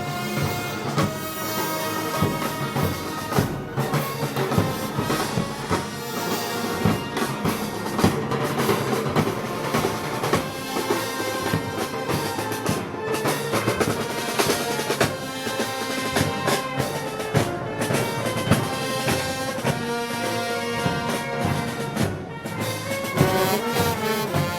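A festival band playing music with brass and a steady beat of bass drum and snare, as heard at Moros y Cristianos parades.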